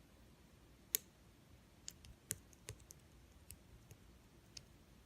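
Slime being played with, giving a scatter of small, sharp clicks and pops, about seven in all, the loudest about a second in.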